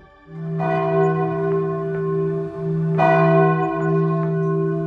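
Church bells ringing: a stroke about half a second in and another about three seconds in, each tone hanging on and fading slowly into the next.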